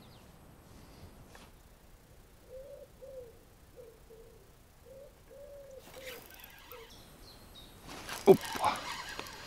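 A dove cooing: a run of soft hooting notes, some in quick pairs, over a few seconds. Near the end comes one sudden loud thump.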